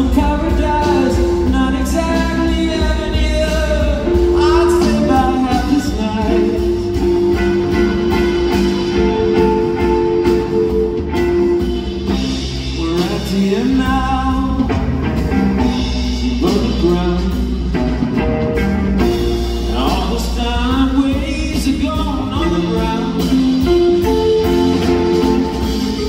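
Live band music heard from the audience: electric guitar and drums under a melody line that slides and wavers in pitch.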